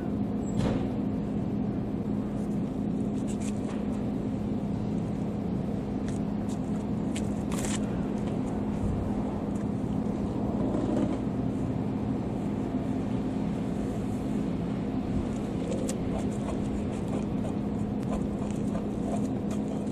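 Steady low engine hum over continuous outdoor background noise, with a few faint clicks, one sharper about eight seconds in.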